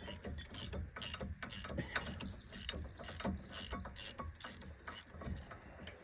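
Ratchet wrench being worked back and forth, its pawl clicking in a steady run of about four clicks a second.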